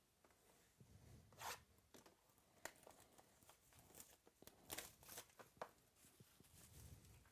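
Faint tearing and crinkling of plastic wrapping as a sealed trading-card box is opened, with scattered small clicks and rustles.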